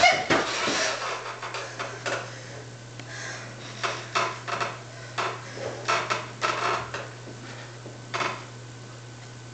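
Irregular rustling and knocking of a scuffle on a bed: bedding pulled about and the bed shifting. It is loudest at the start, then comes in short bursts, over a steady low hum.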